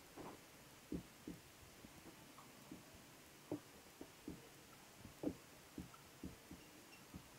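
Felt-tip marker writing on paper: faint, soft taps and knocks of the tip at uneven intervals, a dozen or so, as letters are formed.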